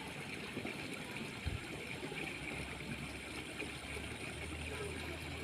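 Faint, steady trickling water, with a single soft thump about one and a half seconds in and a low hum coming in near the end.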